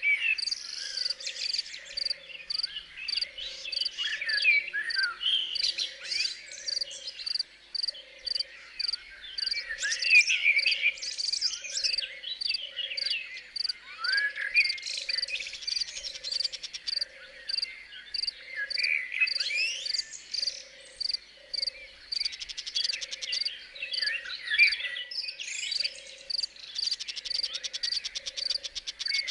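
Crickets chirping in a steady, even rhythm, with a low call repeating at a regular pace beneath them and birds singing over the top.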